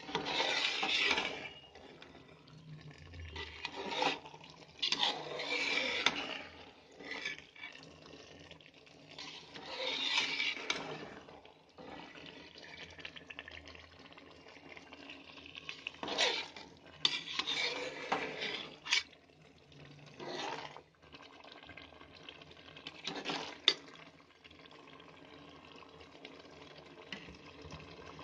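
A steel spoon stirring a thick potato, cauliflower and pea curry in a metal pot: irregular scraping strokes against the pot, with a few sharp clinks.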